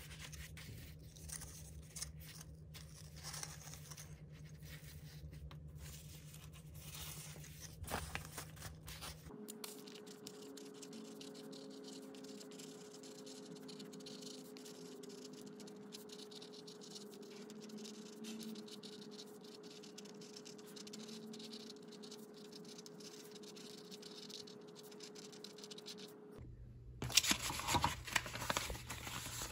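Faint rustling and handling of paper, a jewelry card and packaging on a desk, with a pen writing on a card in the middle. Louder crinkling of a bubble mailer and plastic bag comes near the end.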